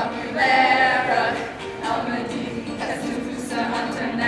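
Several voices singing a French pop song together, with a long held note about half a second in.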